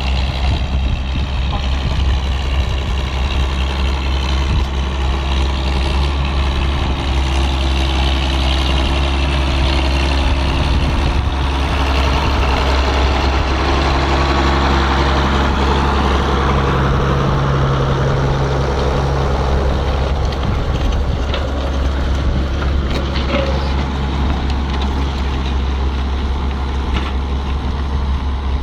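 Engines of Roadless Ford conversion tractors working under load while ploughing uphill: a loud, steady low drone, its pitch shifting slightly.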